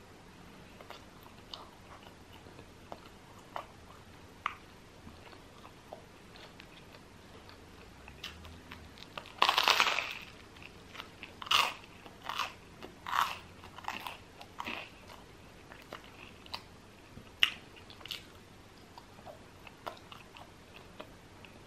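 Close-miked eating of crunchy food. Faint mouth clicks come first, then a loud crunching bite a little before halfway, followed by a run of crunchy chews and a couple more sharp crunches later on.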